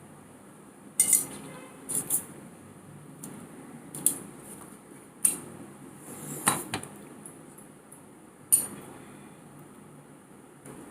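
Cutlery clinking against a plate while eating, several separate sharp clinks at irregular intervals.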